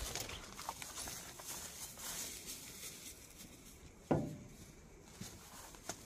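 Footsteps crunching and rustling through dry grass and brush, as scattered light clicks, mostly in the first two seconds. About four seconds in there is one short, louder sound that drops quickly in pitch.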